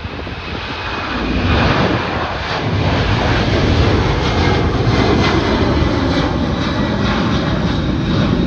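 Jet engines of a Japan Airlines Boeing 767 at takeoff thrust as it climbs out, a roar that swells over the first two seconds and then holds steady, with a faint whine and some crackle.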